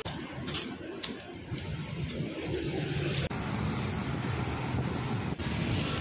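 Street traffic: motor vehicles, motorcycles among them, running and passing on the road, with a few light footsteps on concrete pavement in the first three seconds.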